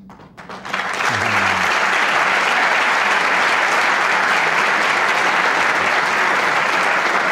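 Audience applauding: the clapping swells in over the first second, then holds as a steady, dense applause.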